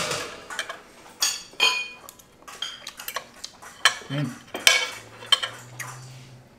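Steak knife and fork clinking and scraping against a ceramic plate while cutting a bone-in ribeye steak, a string of sharp clinks that ring briefly. A faint low steady hum comes in near the end.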